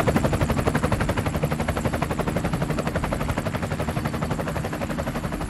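Helicopter rotor chop: a fast, even beat over a steady engine drone, slowly fading.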